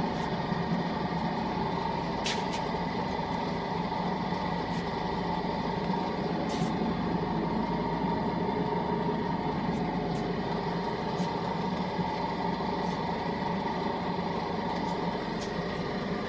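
Stainless-steel vibro sifter (vibratory sieve) running, its vibrating motor giving a steady hum and buzz with a constant whine, while powder is sifted across the screen. A few faint ticks come through now and then.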